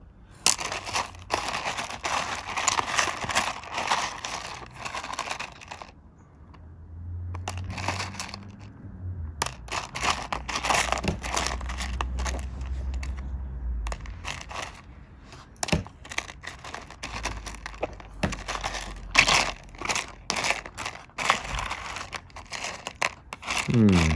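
Plastic bag crinkling and rustling while rough opal pieces are handled and sorted, with frequent small clicks of stones knocking together.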